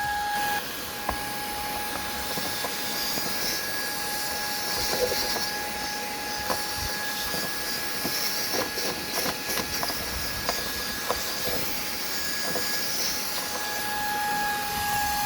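Shark IZ251 cordless stick vacuum running steadily with a tiny brush attachment: a constant hissing suction with a steady high motor whine. Light scattered ticks of the brush nozzle against the dashboard plastic come through, mostly in the middle.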